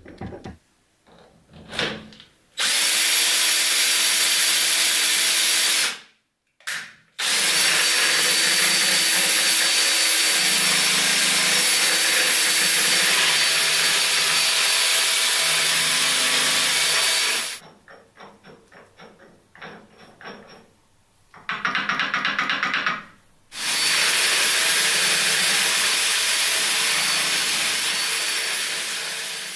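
Electric drill spinning the steel-bolt worm of a homemade worm gear, driving the brass worm wheel. The drill runs at a steady speed with a constant whine, in four runs of about two to ten seconds, with short stops and soft clicks between them.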